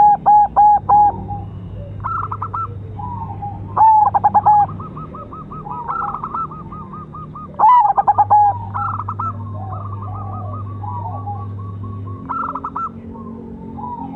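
Silver zebra dove (perkutut) cooing: three loud phrases of rapid, evenly repeated coo notes a few seconds apart, with fainter, slightly higher cooing phrases in between.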